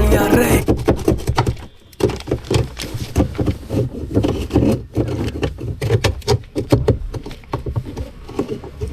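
Washing machine running, with water and clothes sloshing in the tub, irregular knocks and clicks, and a steady low motor hum underneath.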